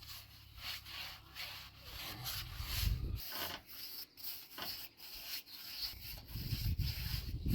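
A brush stroking a coat of finish onto a wooden door: repeated dry, scratchy rubs on the wood, about three strokes a second.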